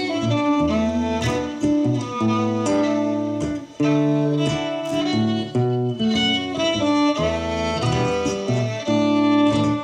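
Violin playing a melody over acoustic guitar accompaniment in an instrumental passage with no singing, with a brief break in the sound about three and a half seconds in.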